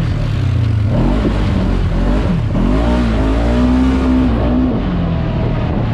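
Segway Fugleman UTV's twin-cylinder engine running under throttle, its pitch rising and falling as it accelerates and eases off, heard from the driver's seat.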